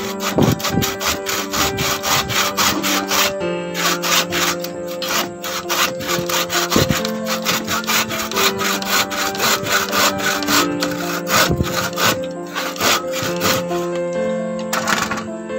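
Steel hand saw cutting through a wooden plank in quick back-and-forth strokes, about four a second, with a short break about three and a half seconds in. The sawing stops shortly before the end. Background music with held notes plays underneath.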